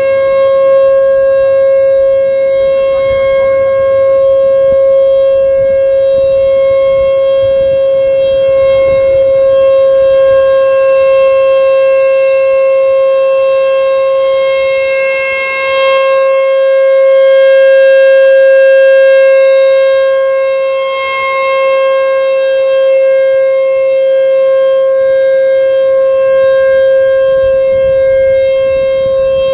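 American Signal T-128 rotating outdoor warning siren sounding at full speed, holding one steady pitch. It swells loudest about halfway through as the rotating horn sweeps past.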